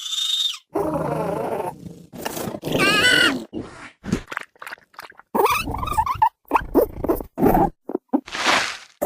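Designed dinosaur creature sound effects for Ferganocephale: a run of separate short grunts, growls and pitched calls with brief gaps between them, ending with a breathy hiss.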